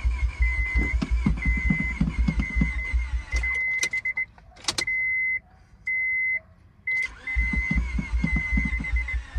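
1999 Honda Prelude's H22A4 four-cylinder turned over by the starter twice without firing: a few seconds of rhythmic cranking, a pause, then cranking again near the end. A high warning chime beeps on and off throughout. The engine won't catch, which the owner puts down to a dead fuel pump and weak battery.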